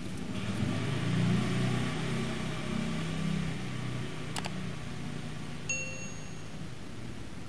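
A low engine-like hum that fades away about four seconds in, followed by a sharp click and then a short, bright metallic ding.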